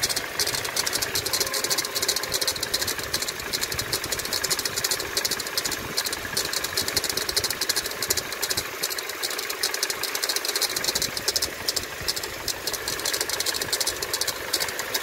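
Toyota Tacoma's 2.7-litre four-cylinder engine idling, with a rapid, steady metallic ticking chirp from the accessory belt drive. The noise comes from worn bearings in the idler pulley.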